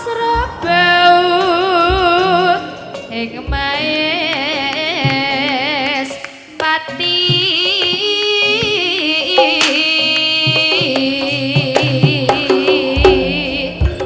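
Live jaranan music from a Javanese ensemble: a wavering melody with strong vibrato over drum strokes.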